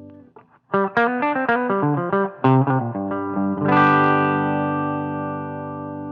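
Electric guitar played through a Kardian Serotonin overdrive pedal, a Tube Screamer-style overdrive with a warm, mid-focused tone. A quick run of single notes is followed about halfway through by a chord left ringing and slowly fading.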